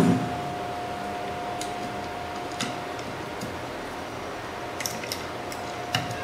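Scattered small clicks and taps of parts and tools being handled during hand assembly of an electronic power supply, over a steady faint hiss and a thin steady tone.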